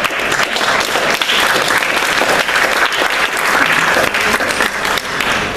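Audience applauding, a dense, sustained clapping.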